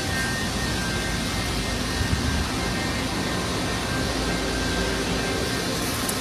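Steady drone of running machinery, an even rushing hum with a faint high whine through it.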